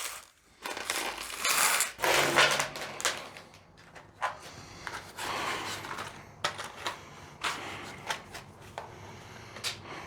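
Rustling and crinkling handling noises, loudest in the first few seconds, then several separate sharp clicks and knocks.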